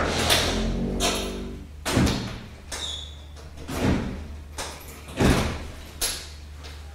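A wooden door being opened and shut: a series of knocks and clunks from the door and its handle, a second or so apart, over a steady low hum.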